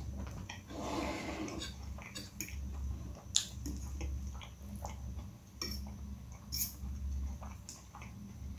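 Close-up eating sounds of instant noodles: chewing, and a metal fork working through the noodles on a glass plate, with a few sharp clinks of fork on glass, the loudest a little past three seconds in.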